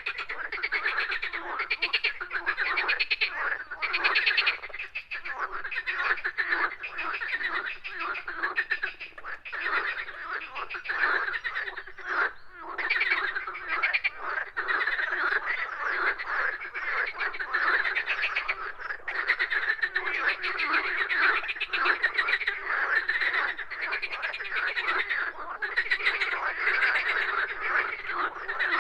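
A chorus of many frogs croaking, their rapid pulsed calls overlapping into a dense, continuous din.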